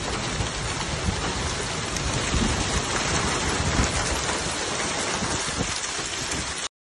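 Heavy rain pouring down in a dense, steady hiss, with a deep rumble underneath; it cuts off abruptly near the end.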